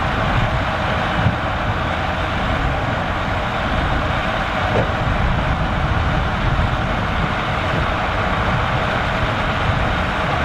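Massey Ferguson 3070 tractor's diesel engine running steadily in the field.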